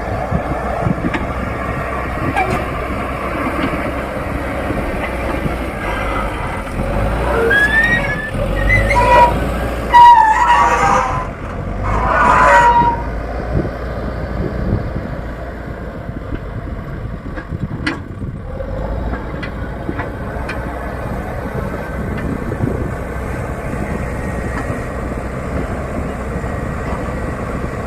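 Diesel engine of a Leyland Deere 435 backhoe loader running steadily under work. Between about a quarter and halfway through, a few short pitched toots and gliding tones stand out as the loudest sounds.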